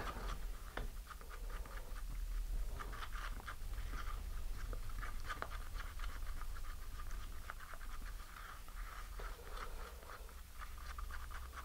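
Wooden stir stick scraping and clicking around the inside of a cup, mixing epoxy thickened with chopped fiberglass: a faint, steady run of small irregular scratchy ticks.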